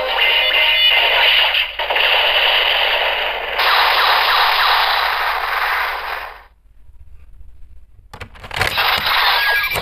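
DX Kamen Rider Zero-One toy transformation belt playing its electronic sound effects through its small built-in speaker, a loud, crackly burst that cuts off suddenly about six and a half seconds in. Near the end a few sharp plastic clicks come as the belt is handled, followed by another loud burst of sound.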